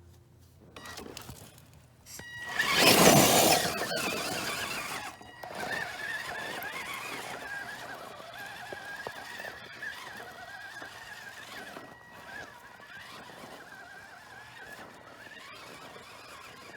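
Gmade GS02 RC truck's electric motor and drivetrain whining as it drives, the pitch wavering with the throttle. A loud burst of scraping noise comes about three seconds in.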